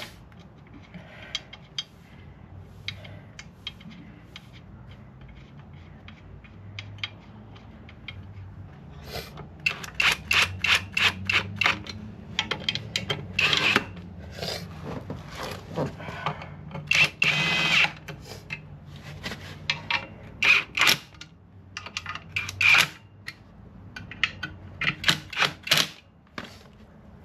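Metal hand tools and bolts clicking, tapping and clinking as a clutch is bolted onto an engine, the taps coming thicker in the second half, with a short ringing metal clatter partway through, over a low steady hum.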